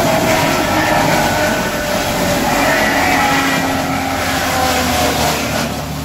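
Tractor-driven sawdust making machine (wood crusher) running while it grinds waste wood: a steady, loud mechanical noise over the tractor's diesel engine working under load, with a whine that wavers in pitch.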